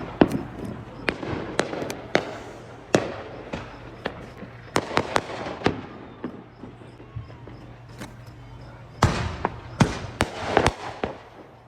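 Consumer fireworks going off around the neighbourhood: many sharp bangs and pops at irregular intervals, with a quick run of bangs about five seconds in and a denser crackling cluster near the end.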